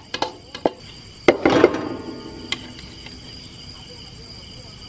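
A spoon clinking and knocking against a bowl while mixing a chili masala: a few light clicks, then a louder clatter that rings briefly about a second and a half in. Insects chirr steadily behind it.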